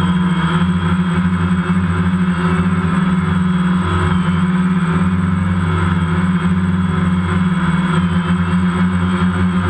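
DJI Phantom quadcopter's motors and propellers humming steadily in flight, heard from the GoPro mounted on the drone.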